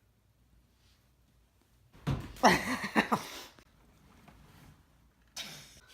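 A loud, breathy vocal outburst about two seconds in, wavering in pitch for about a second and a half. A short breathy hiss follows near the end.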